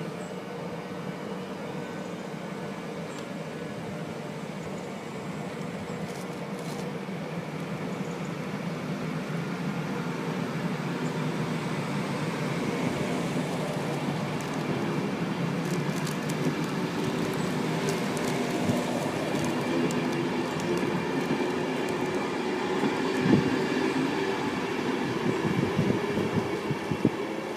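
Train on the line, its running noise growing steadily louder over the first half and then holding. In the second half there are short clicks and knocks from the wheels on the track, one louder knock about 23 seconds in.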